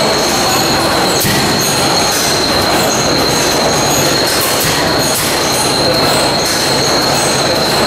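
Large single-cylinder 50 horsepower Miller natural gas stationary engine running, a steady mechanical clatter with a constant high whine over it and light regular strokes.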